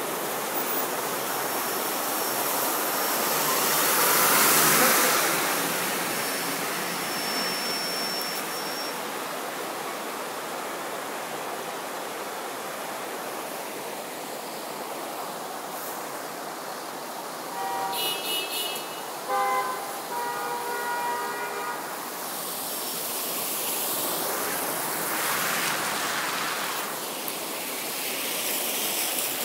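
Vehicles driving slowly through street floodwater, their tyres churning up a steady wash of splashing water. It swells as vehicles pass about four seconds in and again near the end. Vehicle horns honk in several short blasts about two-thirds of the way through.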